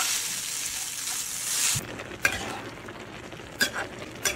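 Noodles sizzling as they are stir-fried with a spatula in a hot carbon steel fry pan; the sizzle stops abruptly about two seconds in. A few light clicks follow in the quieter second half.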